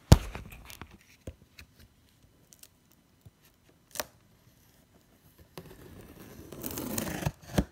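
Handling noise: a loud knock at the start, a few scattered clicks and a sharp tick about four seconds in, then about two seconds of paper and cardboard packaging rustling near the end.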